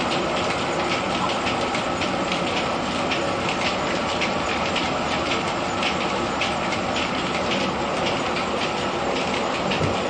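Grain threshing machine in a mill running steadily, with a continuous dense clatter of quick repeated clicks over the machine's even rumble.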